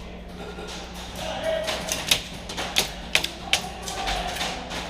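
Airsoft guns firing: sharp snapping shots, single and in short quick strings, spaced irregularly and coming mostly after the first two seconds.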